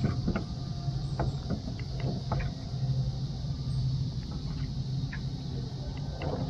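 Small waves slapping and knocking against the hull of a small boat rocking in wind-driven chop, many light knocks over a steady low hum.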